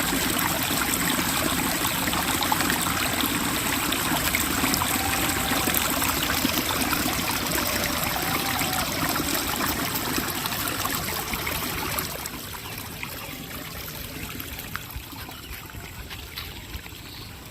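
Water flowing and trickling steadily, dropping noticeably quieter about twelve seconds in.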